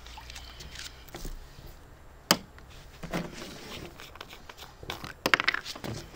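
Hard plastic clicks and knocks from handling a pool's drain valve: the cap coming off and a garden-hose adapter being fitted to drain the pool. One sharp click a little over two seconds in, and a quick run of clicks near the end.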